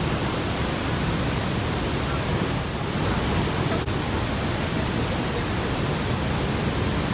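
Niagara Falls pouring down in a steady, even rush of water.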